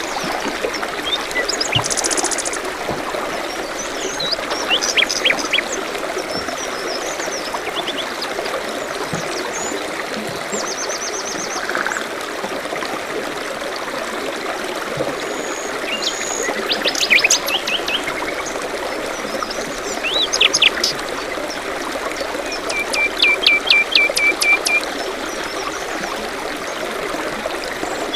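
A stream trickling steadily, with several birds chirping and trilling over it; the busiest bursts of calls come about two seconds in, around seventeen and twenty seconds in, and as a rapid run of notes near the end.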